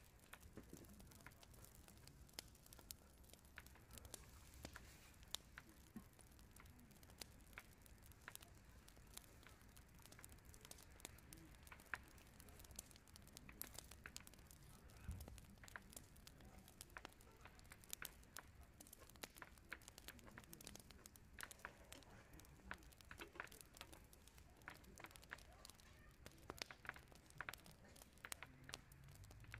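Faint eating sounds of spicy chicken feet being chewed and picked at with a fork: many scattered small clicks and crackles over a low hiss.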